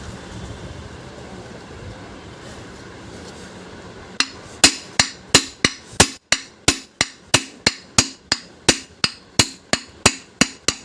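Hammer blows on a ceiling fan's rotor shaft, knocking the rotor core out of the fan body so the worn bearings can be changed. About twenty sharp, evenly paced strikes, about three a second, begin about four seconds in.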